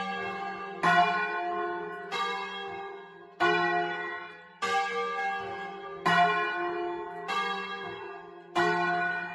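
Two swinging church bells, tuned F3 and G3 and cast by the Magni foundry in 1948 and 1853, rung by rope a doppio and striking in turn. A stroke comes about every 1.2 seconds, and each rings on and fades before the next.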